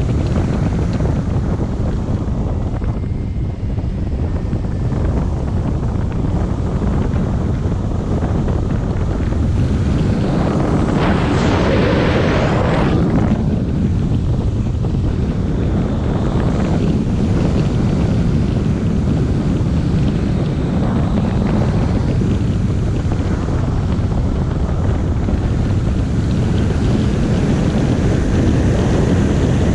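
Rushing airflow buffeting the microphone of a glider-mounted camera in hang-glider flight: a steady, low, noisy rush that swells louder and hissier for a couple of seconds near the middle.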